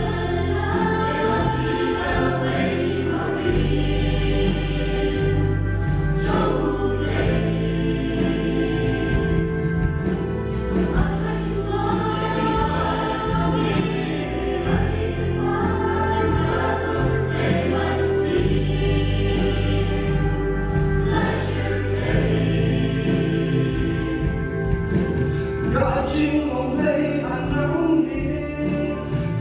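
Background music: a choir singing over a steady bass accompaniment.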